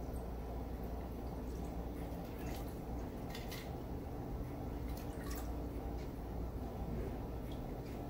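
Stirred gin martini being strained from a metal cocktail shaker into a martini glass: a steady trickle of liquid, with a few faint clinks.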